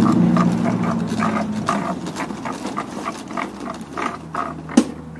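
Snapper Hi Vac push mower being wheeled over cracked asphalt, its wheels and frame rattling in a run of irregular clicks and knocks, with one sharp click near the end. A low steady hum fades out in the first two seconds.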